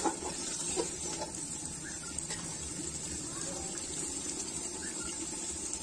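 Chicken curry bubbling in an aluminium pot over a wood fire, with a couple of short knocks from a metal ladle against the pot near the start.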